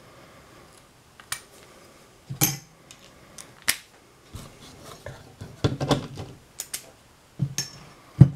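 Metal hand tools clinking and clattering as sockets are sorted through for a different size, a scatter of separate sharp clinks with a cluster just past the middle and the loudest knock near the end.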